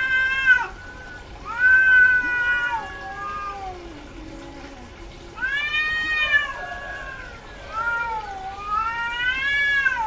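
Female cat in heat yowling: four long, drawn-out calls, one after another, each rising and then falling in pitch.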